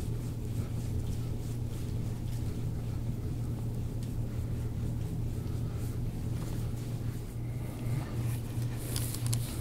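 Steady low mechanical hum, with a few brief scratchy noises near the end.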